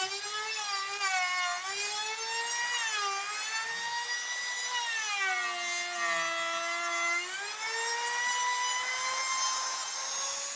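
Electric drill motor running with a high whine whose pitch sags and recovers several times as it is loaded against wood, with the deepest drop about halfway through.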